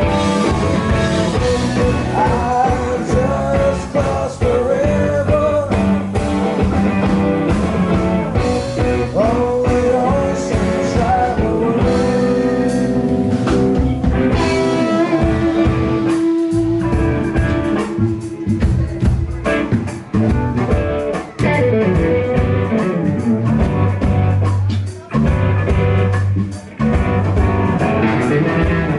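Live blues-rock band playing: electric guitars with bending notes over bass guitar and drums. About halfway through, the band cuts out for a moment before coming back in.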